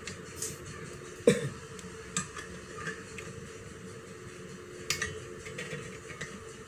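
Scattered metal clinks and knocks from handling a cordless circular saw and its blade-change tool during a blade swap. The loudest knock comes about a second in, with another near five seconds.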